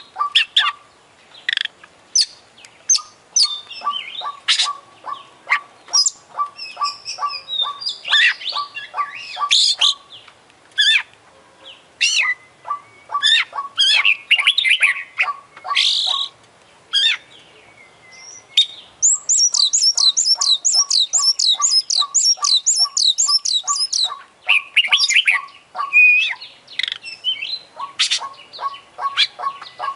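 Oriental magpie-robin singing loudly: a varied, fast song of sharp chips, whistles and trills. About two-thirds of the way in comes a long rapid run of high, falling whistles. A regular lower pip repeats about three times a second under much of the song.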